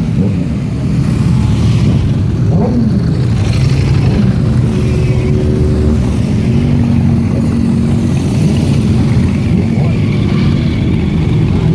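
Motorcycle engines running, with a few short revs that rise and fall in pitch.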